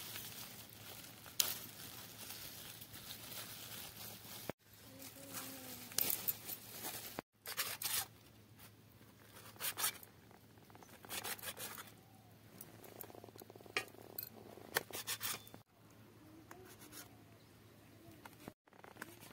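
Thin plastic bag crinkling and tearing as it is peeled off a block of cooked egg, then a knife cutting the egg on a steel plate, its blade scraping and tapping on the metal. The sound is broken by a few abrupt cuts.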